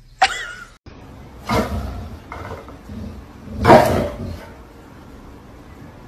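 A dog barking: a few short barks, two of them loud about two seconds apart, with quieter ones between.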